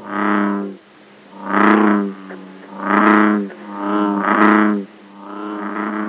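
American bullfrog calling: a series of about five deep droning calls, each under a second long, coming roughly every second and a half.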